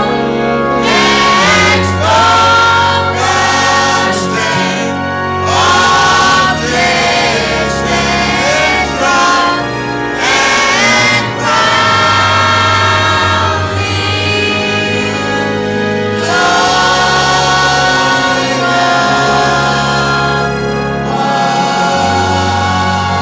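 Choir and congregation singing a gospel worship song over instrumental accompaniment with a steady bass line.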